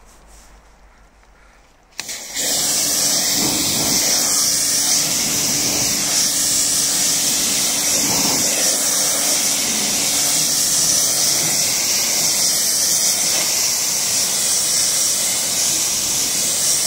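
Water spray rinsing a car's painted body panels to wash off a freshly applied spray-on sealant. It starts suddenly about two seconds in as a loud steady hiss, with a faint low hum under it during the first half.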